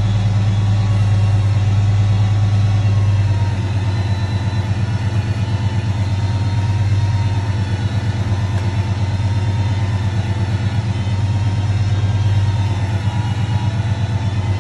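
Engine of a crane truck running steadily, close by, with a quick regular throb that sets in about four seconds in.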